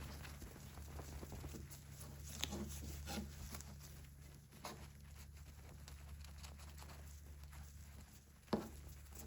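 Steady low hum with a few light knocks and taps of something being handled, the sharpest about eight and a half seconds in.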